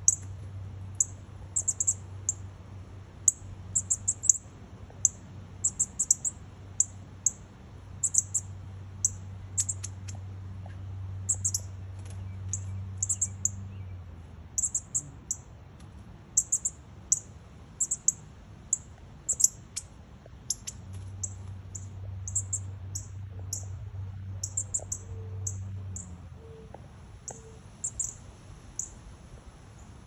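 Northern cardinal nestlings chirping loudly: short, high chirps in quick clusters of two to four, repeated every second or so.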